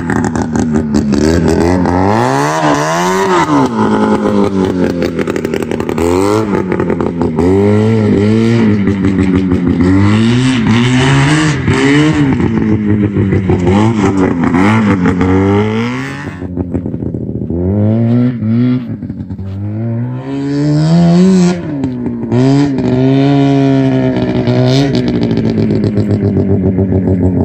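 Yamaha 440cc two-stroke engine in a golf cart being driven hard, its pitch climbing and falling back over and over as the throttle is opened and let off. It is briefly quieter a little past the middle.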